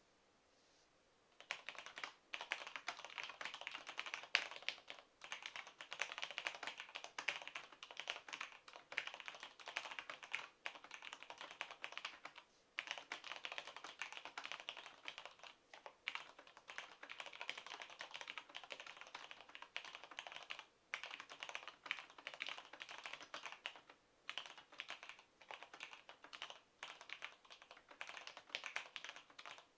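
Fast, continuous typing on a Cherry G80-3000LPCXY-2 keyboard with stock linear Cherry MX Black switches and POM keycaps, starting about a second and a half in, with a few brief pauses.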